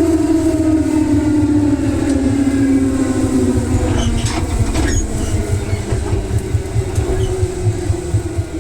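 Electric commuter train heard from on board: a steady rumble under a motor whine that falls slowly in pitch, with a few clicks of the wheels over rail joints about four to five seconds in.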